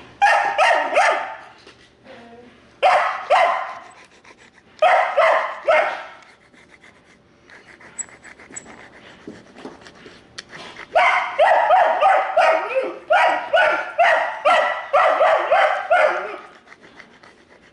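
A dog shut in a kennel yelping, several high-pitched yelps a second in short runs: three runs about two seconds apart, a lull of about five seconds, then a long unbroken run of yelps that stops shortly before the end.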